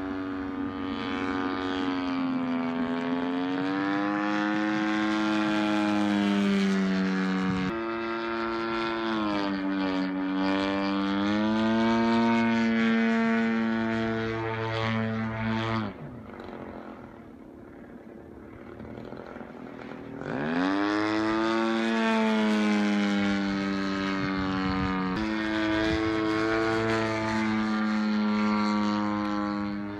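DLE 120 twin-cylinder two-stroke gas engine of a large radio-controlled Yak 55M aerobatic plane flying overhead, its pitch sweeping up and down through the manoeuvres. About sixteen seconds in the throttle is pulled back and the engine drops to a quiet low idle, then about four seconds later it opens up again, rising quickly back to full power.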